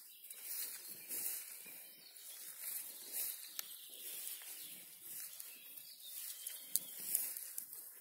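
Footsteps through long grass on a forest track, a soft swishing rustle with each stride that rises and falls about once a second, with a few light clicks.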